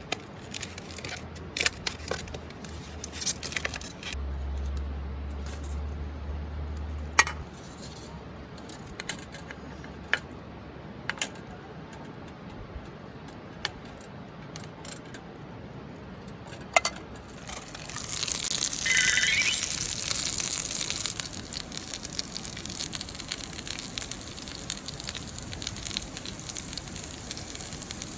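Scattered clicks and knocks of cookware being handled, then, about two-thirds of the way in, food starts sizzling in a pan over a campfire and keeps frying.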